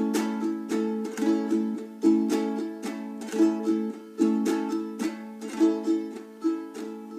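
Ukulele strummed in a calypso pattern (a light touch on the top strings, a finger roll across all strings, then up, down, up), repeated over and over on one chord.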